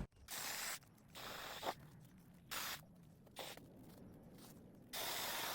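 Five short bursts of rustling, scraping noise, each under a second long, with near silence between them.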